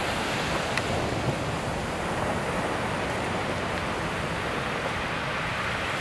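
Pacific Ocean surf washing onto a beach, a steady rush of waves.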